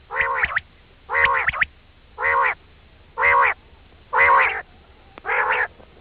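Quail call played as a hunting lure: a short call of about half a second repeated six times, roughly once a second, with brief quiet gaps between.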